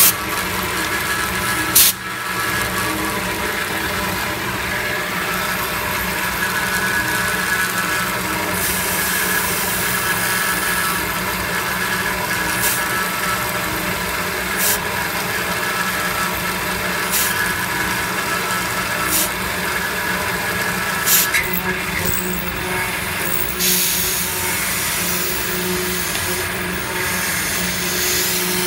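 CNC milling machine's end mill cutting a metal block under flood coolant: a steady machining whine over the spindle's hum and the hiss of the coolant spray, with a sharp tick every few seconds.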